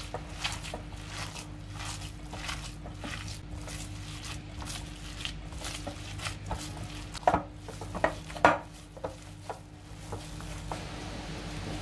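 Hands kneading raw minced meat in a glass bowl, making a steady run of wet squishing and squelching, about two squeezes a second. Past the middle come a few louder slaps of the meat against the bowl. A faint steady hum runs underneath.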